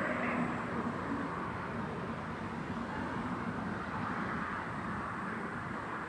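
Steady outdoor background noise, an even hiss with a faint low hum underneath and no distinct event.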